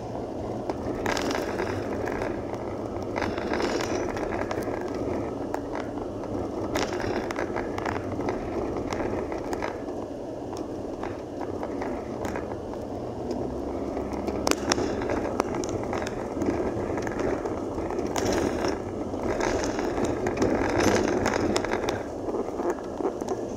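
Tyres rolling over a rough dirt road: a steady rumble with frequent rattles and knocks as the vehicle jolts over bumps and ruts.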